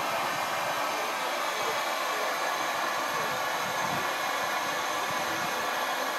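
Standing narrow-gauge steam tank locomotive hissing steam steadily, an even, unbroken hiss.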